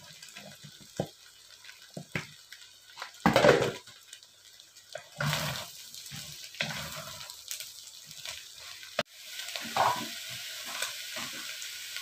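Wooden spatula stirring sliced mushrooms and scrambled egg in a stainless steel pot, with irregular scrapes and knocks against the pot over a frying sizzle. The loudest knock comes about three and a half seconds in, and the sizzle is steadier in the last few seconds.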